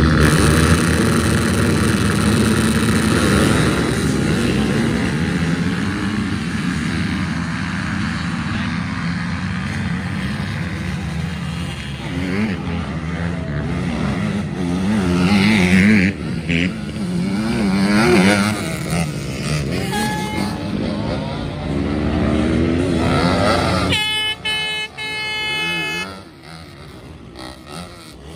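Several racing quad bikes' engines revving hard, their pitch rising and falling with throttle and gear changes. About three-quarters of the way through, one engine holds a high steady pitch, then the sound drops away.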